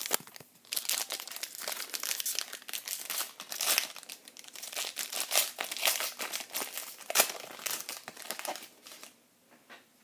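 Baseball card pack wrapper crinkling as it is torn open: a dense run of irregular crackles that dies away about a second before the end.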